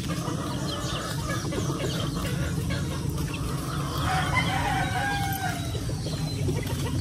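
Roosters and chickens calling, with a rooster crowing about four seconds in, over a steady low rumble.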